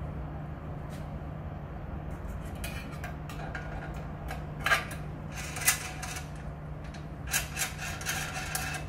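Laser-cut sheet-metal bumper parts scraping and rubbing against the steel frame of a bench-top ventilator as they are fitted in by hand, with a few sharp metallic clicks in the second half. A steady low hum runs underneath.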